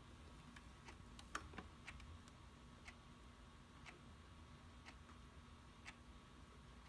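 Near silence with the faint ticking of a clock, one tick a second. A quick cluster of slightly louder clicks comes about a second and a half in.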